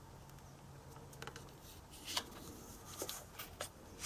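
Faint taps and rustles of a piece of cardstock being handled and slid into position on a stamping platform, a few light clicks scattered through.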